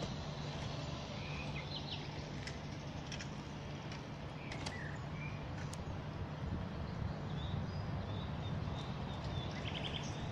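Outdoor ambience: a steady low rumble, with short bird chirps now and then.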